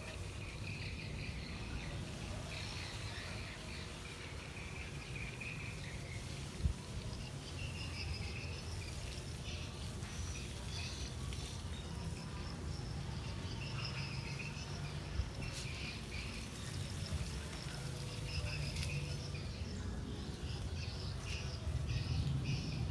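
Outdoor ambience: scattered high chirps of birds and insects over a steady low rumble, with one sharp knock about six and a half seconds in.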